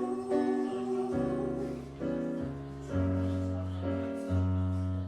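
Instrumental accompaniment playing the closing chords of a slow ballad, with no singing: held chords over a bass note that changes about once a second, fading a little near the end.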